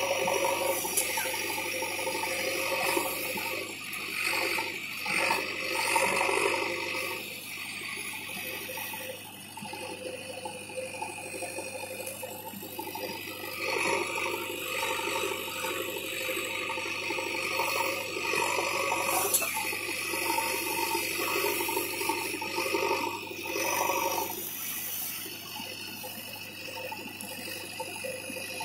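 JCB 3DX Xtra backhoe loader's diesel engine running under load as the backhoe arm digs, its sound swelling and easing as the arm works.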